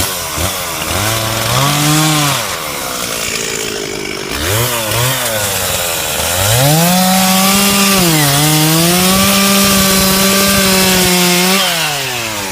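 Two-stroke chainsaw revved in short bursts, then held at full throttle for about five seconds with a brief dip in pitch partway through, cutting into a tree trunk during felling, before dropping back to idle near the end.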